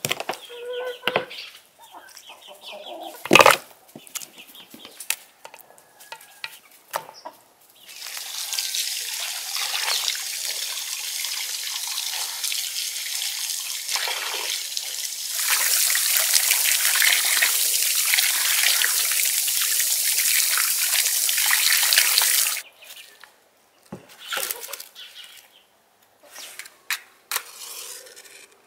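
A knife chopping raw chicken on a wooden board, with one loud chop about three seconds in, and chickens clucking. Then tap water runs into a bowl as food is washed under an outdoor tap, a steady splashing hiss that grows louder about halfway and stops abruptly. A few short knocks follow near the end.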